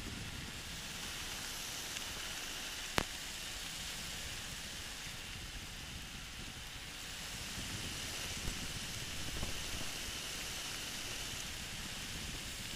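Steady rushing in-flight noise of a flexwing microlight trike: wind and engine blended into an even hiss. A single sharp click about three seconds in.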